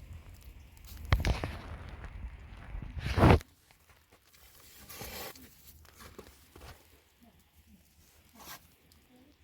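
Footsteps crunching in snow, with two loud crunches about one and three seconds in, then fainter scuffs.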